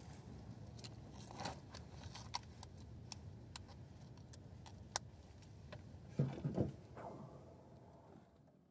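Faint handling sounds: scattered small clicks and light clinks over a low background hum, with a louder rustle and shuffle about six seconds in. The hum drops away near the end.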